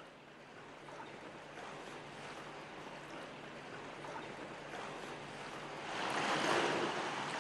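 Water in an indoor swimming pool, lapping and sloshing at the pool edge. It grows louder about six seconds in, as a swimmer sinks back into the water.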